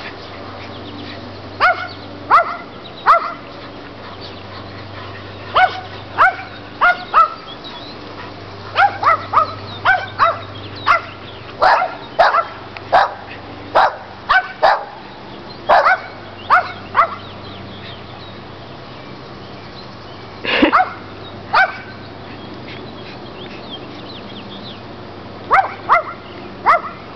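Dogs barking in quick runs of sharp barks, with lulls between runs. One deeper bark comes about two-thirds of the way through.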